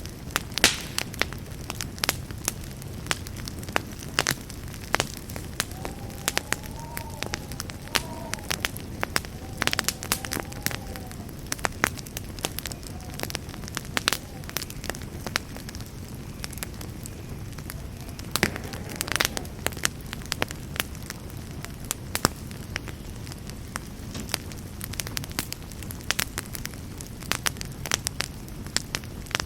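Campfire burning: a steady low rumble with frequent irregular sharp pops and snaps of crackling wood, and a faint wavering whistle a few times.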